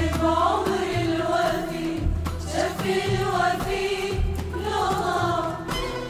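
Women's choir singing an Arabic song together, accompanied by an orchestra with violins and repeated low bass notes.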